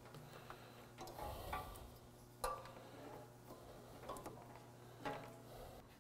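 Faint handling noises as a wire is fed down behind a truck's radiator and grille: light rustling and a few soft clicks, over a low steady hum.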